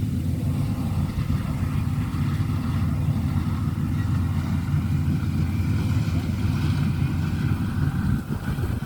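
Combine harvester engine running with a steady low drone.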